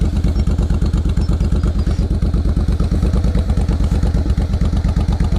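Motorcycle engine running steadily with an even, rapid exhaust beat.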